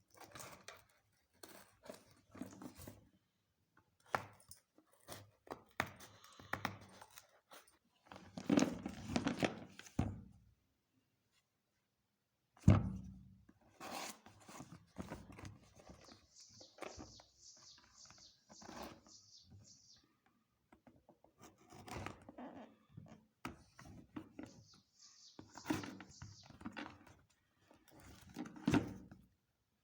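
Unboxing handling: a kids' lunch box and its packaging being unwrapped and moved about, with irregular rustling, tearing and knocks of plastic, one sharp knock about halfway through, and two stretches of steady hissy rustling later on.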